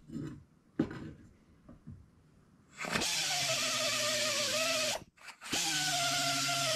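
A die grinder with an abrasive pad starts about three seconds in and runs steadily against a racing outboard propeller blade, smoothing and blending its face. It cuts out for half a second about five seconds in and starts again. Before it starts there are a few light knocks and handling sounds.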